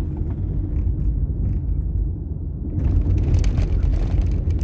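Steady low rumble of a car on the move, heard from inside the cabin. About three seconds in, a crackling, rustling noise joins it.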